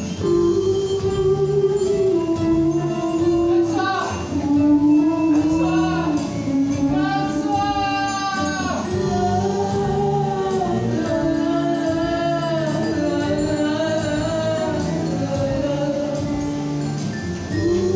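A woman singing a slow French chanson with a live band, holding long notes with vibrato.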